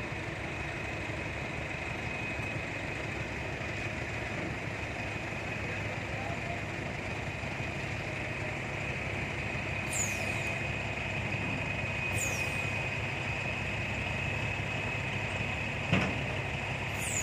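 Heavy diesel engine running steadily, most likely the mobile crane's as it holds and lowers the truck-mounted rig, with a steady high whine over it. Short high falling chirps come at about ten and twelve seconds in, and a single knock at about sixteen seconds.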